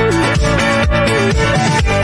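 Background music: upbeat electronic dance track with a steady beat and a gliding melody.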